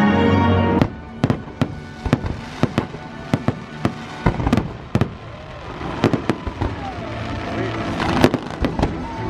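Steady show music cuts off about a second in, giving way to a rapid string of fireworks shells bursting and cracking, a few every second, with the loudest reports near the middle and near the end. Music comes back faintly under the bursts near the end.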